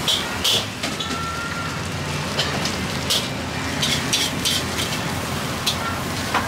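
Hot oil sizzling in a wok: a steady hiss with irregular sharp crackles and pops.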